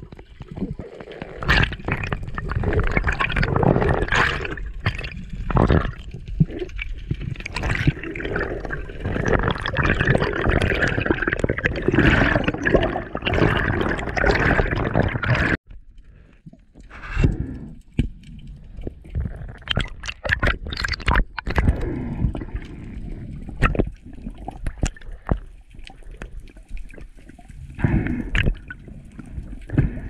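Water sloshing, gurgling and bubbling around an underwater camera as a freediver moves through the sea. About halfway it drops abruptly to a quieter water hiss with scattered sharp clicks.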